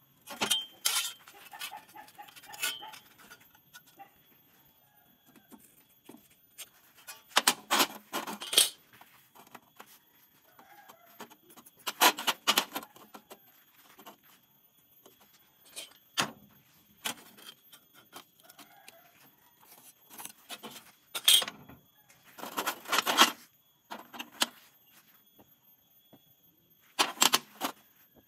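Small steel pieces and a steel rule being handled on a steel workbench: about a dozen short metallic clinks and scrapes, spaced irregularly with quiet gaps between them.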